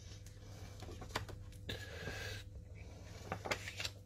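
Faint rustling and a few light clicks of printed photo cards being handled and flipped through by hand, over a low steady room hum.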